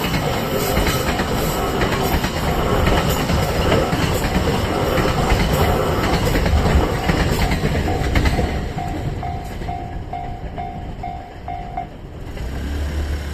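A JR Freight train rolls past over a level crossing, its wheels clattering on the rails, while the crossing's warning bell rings about twice a second. The train noise eases after about eight seconds, the bell stops near the end, and a low engine hum starts up.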